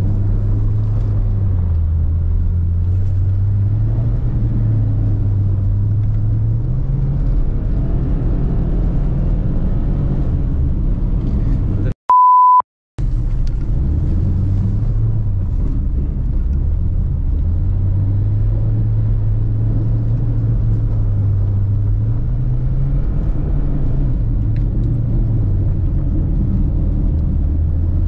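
Subaru Forester SJG's turbocharged flat-four engine running under load, its revs rising and falling as it is driven hard. About twelve seconds in, the engine sound cuts out for about a second and a short, steady, high bleep is dubbed over it.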